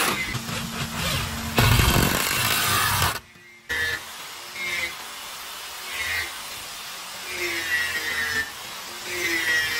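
A power tool running loud for about three seconds, then stopping abruptly. After a brief gap, a slower run of repeated strokes follows about every second and a half, each falling slightly in pitch.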